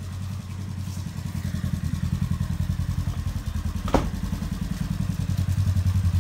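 Polaris General XP side-by-side's twin-cylinder engine idling with an even, rapid pulse, getting a little louder toward the end. A single sharp click about four seconds in.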